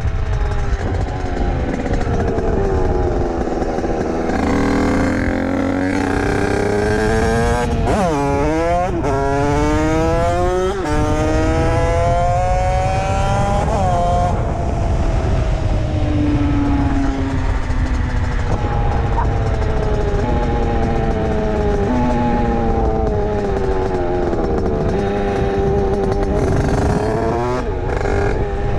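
Rieju MRT Pro's two-stroke engine, fitted with an 86 cc Top Performance aluminium kit, 24 mm PWK carburettor and Voca 80/90 expansion pipe, under way on the road. The revs climb and fall repeatedly, with a sharp dip and climb about eight seconds in and sudden drops in pitch a few seconds later.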